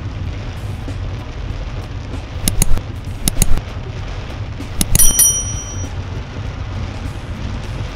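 Mouse-click sound effects and a short bell ding from an animated subscribe-button overlay: two pairs of clicks, then a click and a ding about five seconds in. Underneath is the steady low rumble of a car driving through heavy rain on a wet road.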